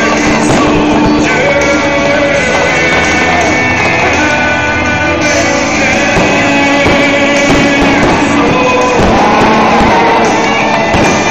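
Loud rock song with singing playing during a fireworks show, the music covering the sound of the bursts.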